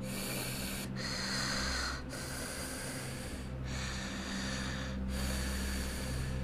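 Elevator running between floors: a steady low hum under a hiss that breaks off briefly about every second and a half.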